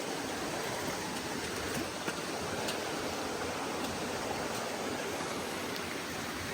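Steady rushing of a mountain stream or waterfall: an even, unbroken noise of running water.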